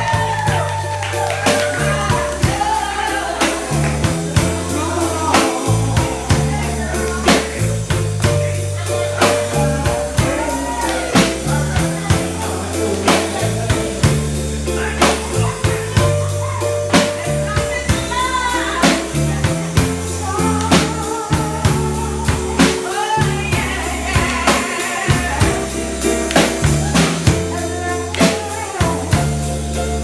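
A woman singing into a microphone over a backing of bass and drum kit, with the bass changing notes in steps under a steady drum beat.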